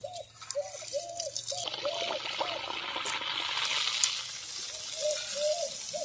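A maida puri frying in hot oil in a steel kadhai. The oil sizzles and bubbles, swelling about two seconds in as the puri goes in and starts to puff. Runs of short, arching pitched notes sound over it at the start and near the end.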